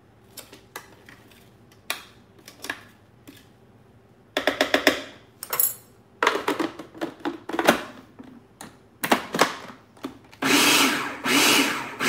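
Food processor pulsed in short bursts, chopping fresh herbs. A few light clicks come first, then the bursts start about four seconds in, with the longest and loudest near the end.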